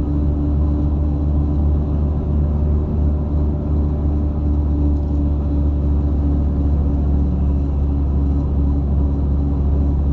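Steady low drone of a car's engine and road rumble, heard from inside the cabin.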